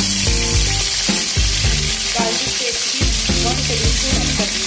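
Ginger paste sizzling steadily in hot ghee with whole spices in a kadai, over background music.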